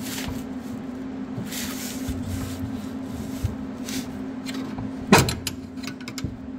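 A screwdriver prying at a Honda Integra's rear lower control arm: scraping and light clicks of tool on suspension parts, with one sharp clank about five seconds in followed by a run of small clicks, over a steady hum.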